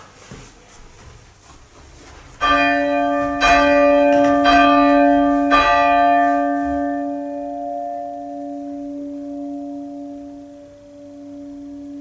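A single church tower bell being chimed: it hangs mouth-down and is swung just enough by its rope for the clapper to strike. Four strokes come about a second apart, starting about two and a half seconds in. After them the bell's hum rings on and slowly fades.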